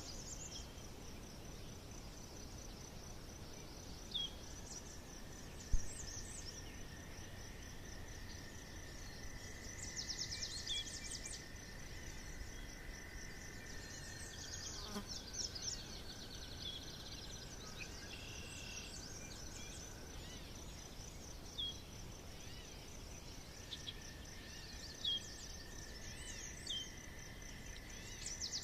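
Forest ambience: a steady, pulsing high insect buzz under scattered short bird chirps and calls, with a long steady whine in the background over stretches. A single brief knock about six seconds in.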